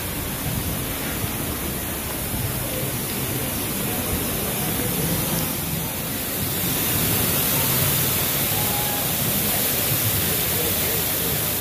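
Steady rush of water flowing along a shallow concrete channel, growing louder a little past halfway through.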